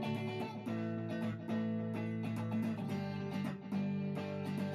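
Background music: a strummed and plucked guitar tune.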